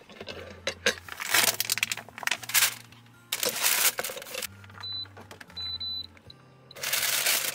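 Parchment paper crinkling in several bursts as a metal double-sided hot sandwich pan is handled and set on an induction cooktop, with a few short high beeps from the cooktop's controls about five to six seconds in. Background music with a low bass line runs underneath.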